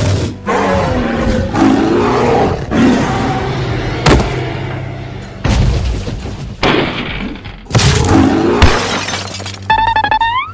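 Dinosaur roar sound effects, several long loud roars, over background music. There is a sharp crash like a cage breaking about four seconds in and another near nine seconds, then a quick rising whistle-like effect just before the end.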